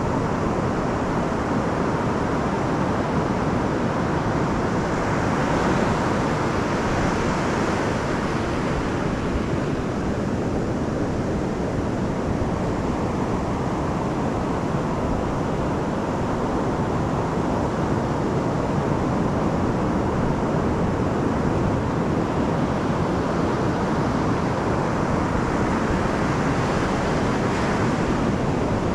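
Pacific surf breaking and washing up a flat sand beach: a steady rush of waves that swells about six seconds in and again near the end.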